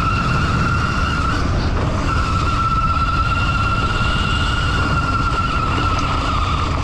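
A 2800-watt CYC X1 Pro Gen 2 mid-drive e-bike motor whining steadily under throttle, cutting out briefly about a second and a half in. Underneath is heavy wind rumble on the microphone and tyre noise on the dirt track.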